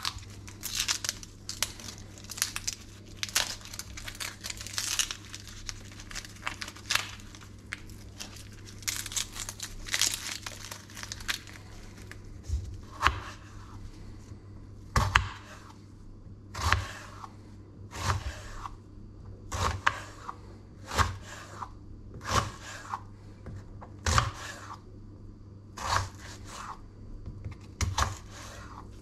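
Dry, papery onion skin being peeled and torn off with a knife, crackling and rustling for about the first twelve seconds. Then a kitchen knife cuts through the onion and knocks on a wooden cutting board, one cut about every one and a half seconds.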